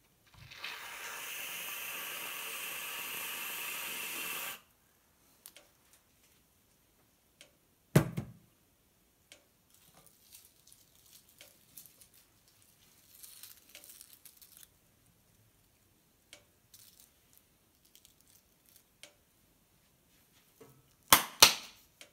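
Aerosol can of whipped cream spraying, a steady hiss lasting about four seconds as the cream is piped onto a plate. A single sharp knock about eight seconds in, faint handling sounds after it, and a couple of louder knocks near the end.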